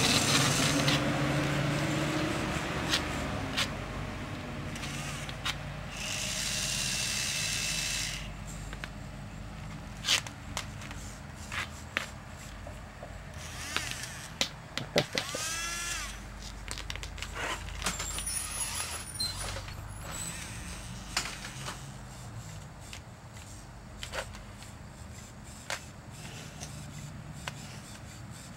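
Small electric motors of a homemade RC car with a grabber claw. The drive motor whirs briefly at the start, and a small geared motor on the claw arm whines steadily for about two seconds. Clicks and knocks of the claw and rocks on concrete are scattered throughout.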